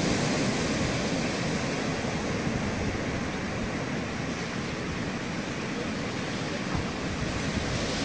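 Ocean surf: a steady rush of waves breaking and washing, with no distinct single wave crashes standing out.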